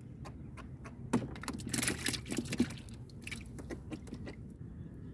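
Close clicks, ticks and crackling rustle of a small, freshly caught fish being handled and unhooked in the hands. The sounds come thickest about two seconds in and die away after about four and a half seconds.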